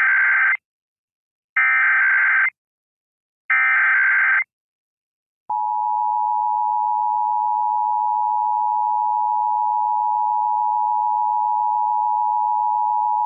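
Emergency Alert System test: three short bursts of SAME digital header data, about a second each and a second apart. Then, about five seconds in, the steady two-tone EAS attention signal (853 and 960 Hz sounding together) starts and holds.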